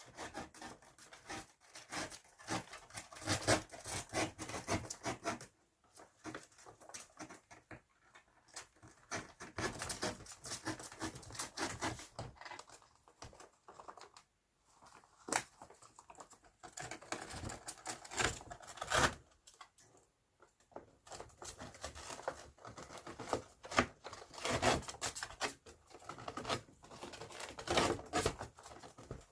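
Flying squirrels scrambling and playing inside a paper bag: a fast, irregular run of scratching, scuffling and crinkling paper, with a few brief pauses. It is very noisy.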